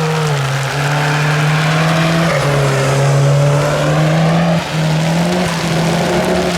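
A car engine running hard under acceleration, its pitch shifting in steps at gear changes about every two seconds, with a short dip in level at one shift.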